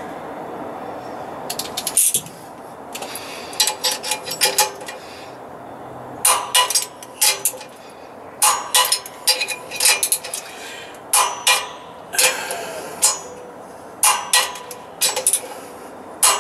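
Hand ratchet wrench clicking in short runs, a few quick ringing metal clicks at a time, repeated about once a second, as the two-stage air compressor's cylinder-head bolts are tightened down on a new head gasket. A steady background noise runs through the first two seconds and stops abruptly.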